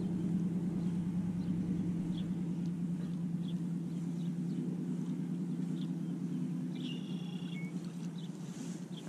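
Fishing reel being cranked steadily to retrieve a topwater lure, a low whirring hum that eases off near the end. Birds chirp briefly several times.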